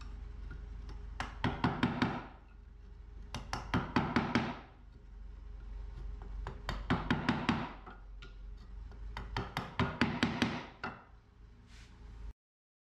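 Wooden mallet with a heavy Jatoba head rapping a wooden-handled chisel into a strip of wood, in four quick bursts of about five to seven blows each.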